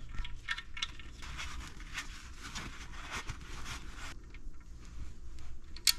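Soft rubbing and scraping with scattered light clicks, from hands handling a part and tool, most likely the oil drain plug being wiped with oil and threaded back in; a sharper click near the end.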